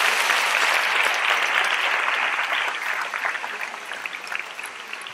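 Audience applauding, loud at first, then thinning out over the last two seconds into scattered separate claps.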